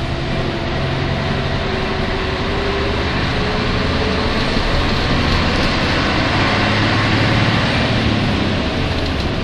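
Cabin sound of a Nissan Diesel UA city bus (U-UA440NAN) under way: the diesel engine and drivetrain run steadily with road noise, the engine note shifting and getting a little louder in the middle. This bus is known for running with an abnormal noise, which the uploader puts down to its being close to its inspection deadline.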